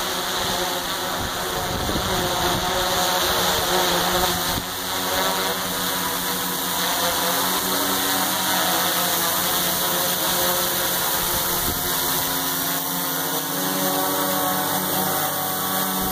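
Multirotor drone's electric motors and propellers buzzing steadily in flight, the pitch wavering slightly.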